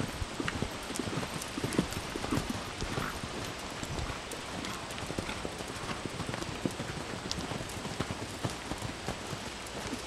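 Hoofbeats of several horses cantering on a sand arena, an uneven run of dull thuds that is loudest in the first few seconds.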